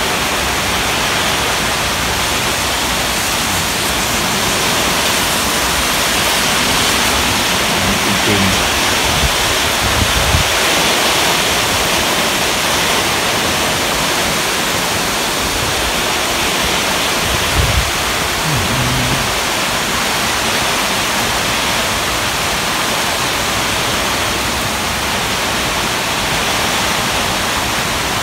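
Heavy rain pouring down in strong, gusty wind: a constant dense hiss. Partway through, a couple of brief low thumps that sound like wind gusts striking the microphone.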